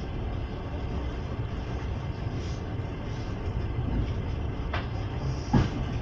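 Passenger train running, a steady low rumble of the wheels on the rails, with two sharp knocks near the end, the second the louder.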